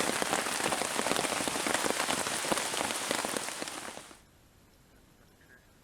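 Steady rain with a dense patter of close drops striking. It cuts off abruptly about four seconds in, leaving near quiet.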